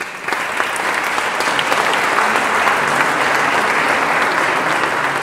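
Audience applauding in a stone church: dense, steady clapping that breaks out all at once and carries on throughout.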